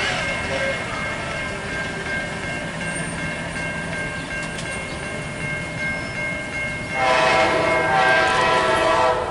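Railroad crossing bell ringing steadily as the crossing gates lower. About seven seconds in, the approaching MARC commuter train's locomotive horn sounds one long blast, the loudest sound, which stops at the very end.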